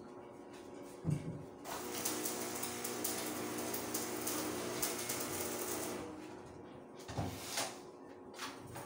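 Handheld angle grinder grinding the steel of a staircase frame. It starts about a second in, runs with a steady hiss and whine for about four seconds, then winds down. A few short knocks follow near the end.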